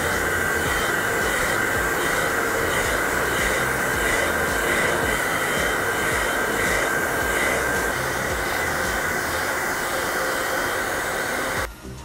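Handheld hair dryer blowing hair dry: a steady rush of air with a constant whine, cutting off abruptly near the end.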